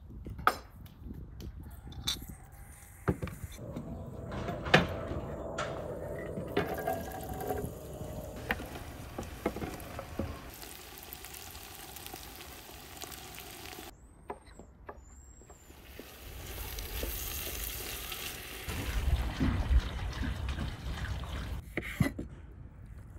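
Cooking sounds from a pot on an outdoor stove: a knife knocking on a wooden chopping board, grated carrot being scraped into a steaming pot, and watery simmering noise, with occasional sharp knocks.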